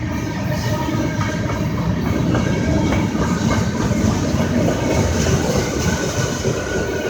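Slow-moving CSX freight train of boxcars rolling past, its steel wheels rumbling and clacking over the rail joints in a steady, continuous run.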